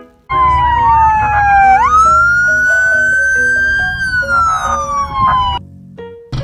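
Police car siren wailing. The pitch dips, jumps up, climbs slowly, then falls away over a low rumble, and the siren cuts off about five and a half seconds in.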